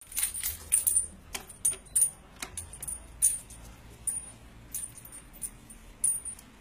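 Small metal objects jingling and clinking irregularly: about fifteen sharp, bright clinks spread over several seconds.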